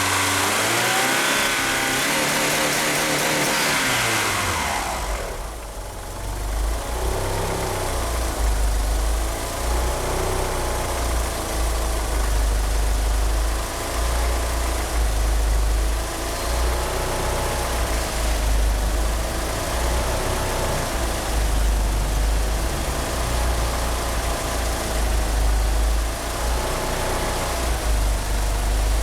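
Mitsubishi Eclipse GSX turbocharged 4G63 inline-four running on 850cc fuel injectors. It holds a raised engine speed for the first few seconds, falls back about four seconds in, and then idles roughly with an uneven, wavering rumble. This is a rough idle with the big injectors, on an engine that won't rev up properly.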